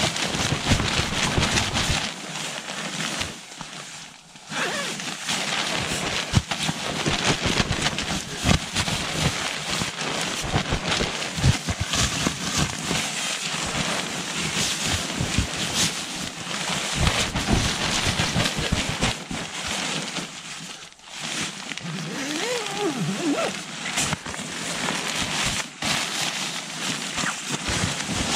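Nylon shell of a Western Mountaineering Bison down sleeping bag rustling and crinkling as it is handled and spread out, a dense stream of crinkles broken by two short pauses.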